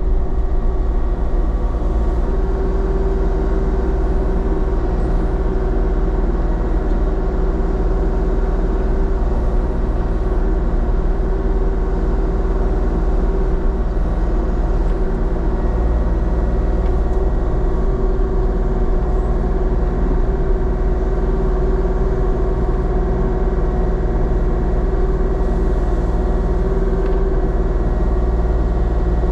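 Diesel engine of compact construction equipment running steadily at a constant speed, with a heavy low rumble and an even hum.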